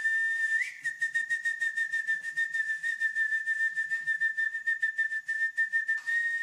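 A long, high whistle held on one steady note, fluttering several times a second, with a brief upward flick about half a second in.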